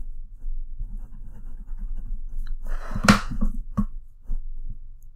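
Wooden pencil scratching on paper in short drawing strokes, with a louder sharp scrape or knock about three seconds in, over a steady low hum.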